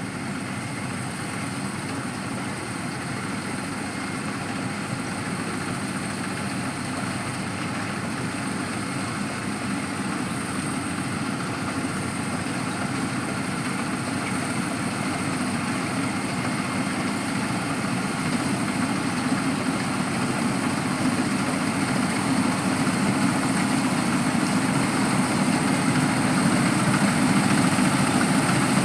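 Engine of a rice harvesting machine running steadily, slowly growing louder as the machine comes nearer or works harder.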